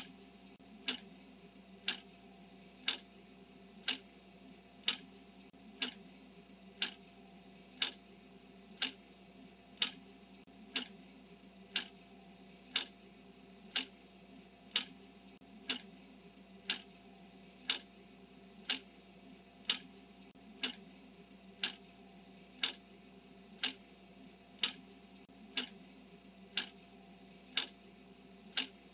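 Countdown timer ticking once a second, a sharp clock-like tick on every count. A faint steady hum lies underneath.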